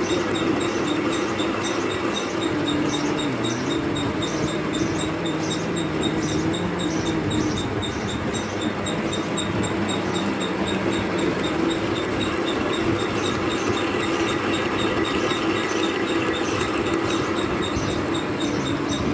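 Metal-turning lathe running steadily with a steel bar spinning in its chuck: an even machine hum with a fast, regular ticking over it.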